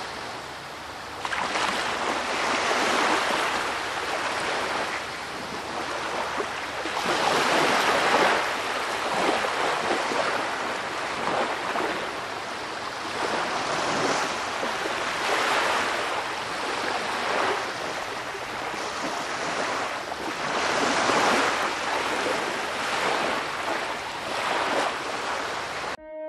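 Gusty wind rushing through palm fronds, swelling and easing every few seconds.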